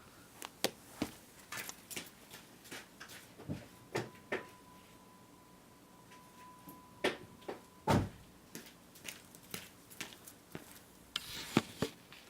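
Irregular sharp clicks and knocks, the loudest about eight seconds in, with a faint steady tone for about four seconds in the middle.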